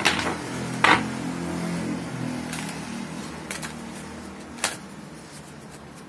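A tarot card deck shuffled by hand: cards sliding against each other, with a few sharp clicks as they are tapped and snapped together, the loudest about a second in.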